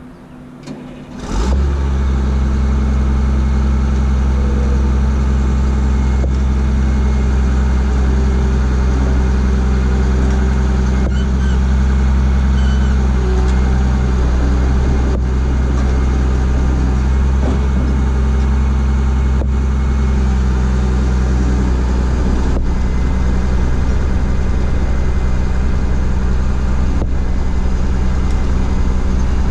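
Caterpillar CP-563 vibratory soil compactor's diesel engine running steadily with a deep, even low drone, coming in abruptly about a second in.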